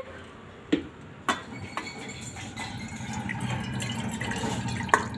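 Steel cookware clinking a few times, then a steady stream of liquid poured from a steel pan into a steel bowl, with a last clink near the end.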